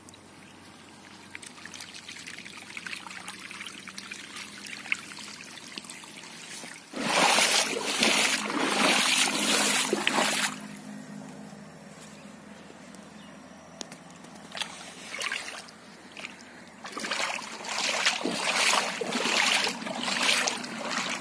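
Water running along a narrow earthen irrigation channel during a wheat field's first watering. Two stretches of much louder noise break in, about seven seconds in and again from about seventeen seconds in.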